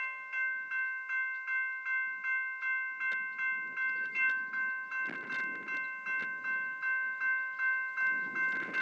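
Railway level-crossing bell ringing steadily at about two and a half strokes a second, warning of an approaching train. Gusts of wind rumble on the microphone about five seconds in and again near the end.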